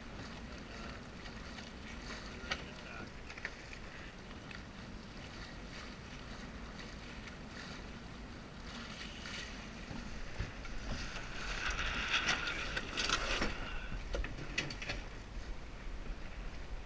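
Lightning sailboat under way: steady wind rumble on the microphone and water noise around the hull, with scattered small clicks. About eleven seconds in, a louder rush of noise lasts a couple of seconds.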